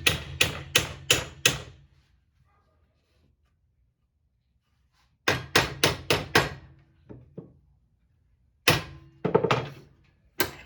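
Hammer blows on an aluminium bracket, bending it toward a 90-degree angle. There are three quick runs of sharp strikes, about three a second, with pauses between them.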